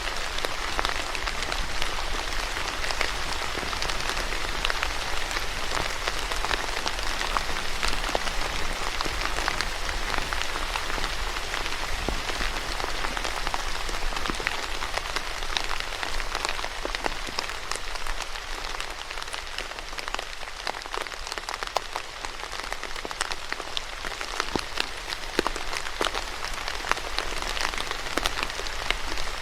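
Steady rain falling on a hard surface: a constant hiss with a dense scatter of separate drop ticks, easing slightly a little past the middle.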